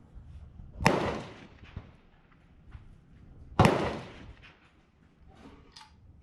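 Two gunshots about three seconds apart, each a sharp crack with a short echoing tail.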